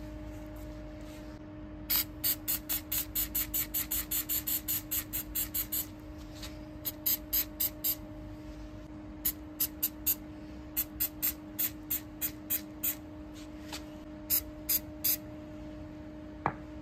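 Aerosol can of Flex Seal rubber coating sprayed in quick short hisses, about five a second, in runs with short pauses, laying a black coat on a slingshot. A steady low hum sits underneath.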